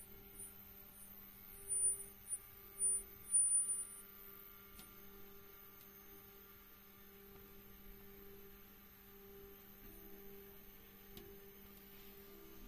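Stepper motors of a Hypercube Evolution 3D printer's Z axis giving a faint steady electrical hum under a 4 kg load test, with several short, very high-pitched chirps in the first few seconds.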